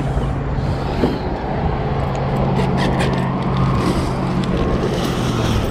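A steady low engine hum over a noisy outdoor wash, with a few faint clicks about halfway through.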